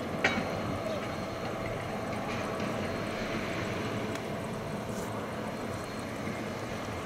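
Heavy diesel engine running steadily at idle, with one sharp metallic clank a moment after the start.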